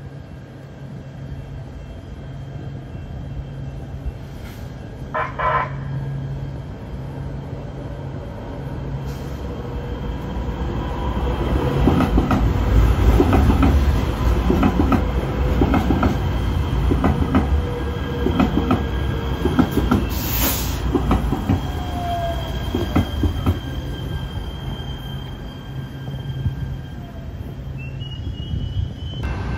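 Kinkisharyo P3010 light rail train pulling into a station, its wheels rattling and squealing on the rails as it passes close by and slows. A brief hiss comes about two-thirds of the way through.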